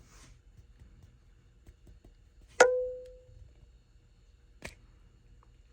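A single sharp snap with a brief ringing tail as the plastic back cover of a Toyota keyless entry remote is pried open with a flathead screwdriver. A fainter click follows about two seconds later.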